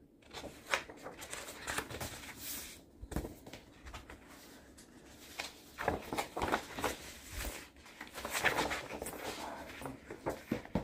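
Large sheet of paper poster being handled and folded, the paper rustling and flapping in irregular bursts.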